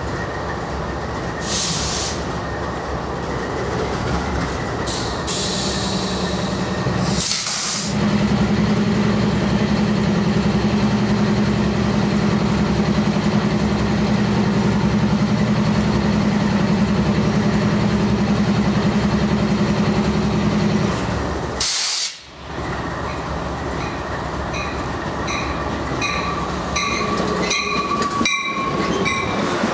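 Diesel locomotives rumbling at a station platform, with a steady low engine drone through the middle section. Later a passenger train rolls in while a bell rings repeatedly, about twice a second, and a faint wheel squeal comes in near the end.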